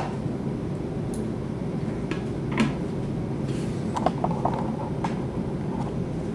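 A metal spoon scraping and scooping ripe avocado flesh from its skin, a few light clicks and scrapes over a steady low room hum.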